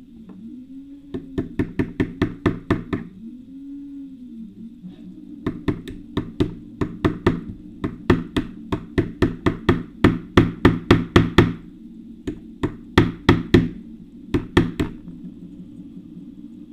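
Light, rapid hammer taps on a nail punch, driving the clamp pin out of a Shimano BL-M7100 brake lever body. The taps come about three a second, in three runs with short pauses between.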